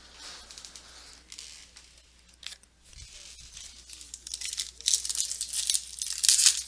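Foil wrapper of a trading card pack tearing open and crinkling. Faint rustling at first, then loud, fast crinkling and tearing from about halfway in.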